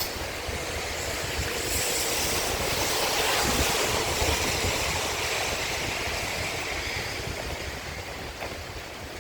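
A road vehicle passing by, its tyre and road noise swelling to a peak about three seconds in, then fading away.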